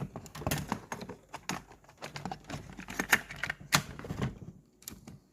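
A rapid, irregular run of small clicks and taps, like hands working the plastic parts of a cassette player, dying away near the end.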